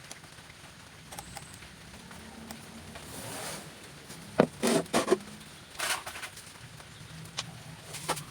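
A few short knocks and rattles, several close together about halfway through and one more near the end, over a low steady hum.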